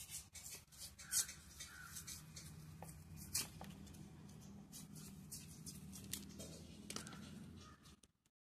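Knife blade scraping and prying the thick peel away from a raw cassava root, with scattered sharp clicks and scrapes over a low steady hum. The sound cuts off near the end.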